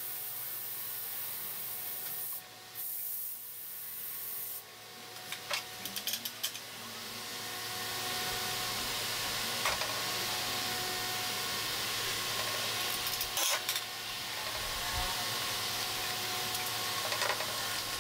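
Steady hiss of workshop background noise with scattered light knocks and clicks from handling a motorcycle engine on steel jack stands. The hiss cuts out briefly twice in the first few seconds.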